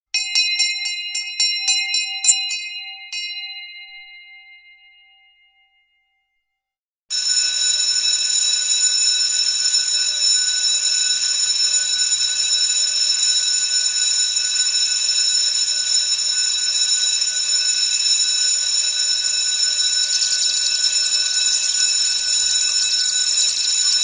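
A bell is struck about ten times in quick succession, then rings out and fades away. After a second or so of silence, an electric school bell starts ringing continuously with its clapper rattling against the gong, and it gets brighter near the end.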